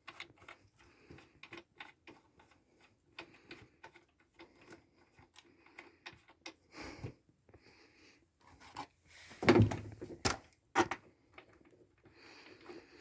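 Small clicks and taps of hands handling a handheld induction bolt heater and its coil attachments, with a louder clatter and a couple of knocks about ten seconds in.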